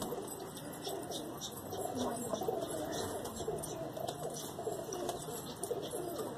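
A flock of domestic pigeons cooing continuously, many birds overlapping, as they feed on grain on the ground.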